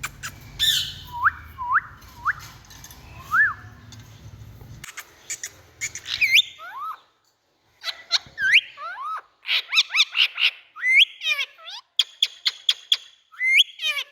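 Indian ringneck parrot calling: a few short rising whistled notes, then quicker runs of sharp squawks, chattering clicks and rising and falling calls.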